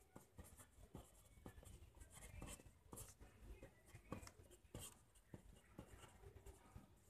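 Ballpoint pen writing on lined paper on a clipboard: faint, irregular scratching strokes and small ticks as the pen forms each symbol.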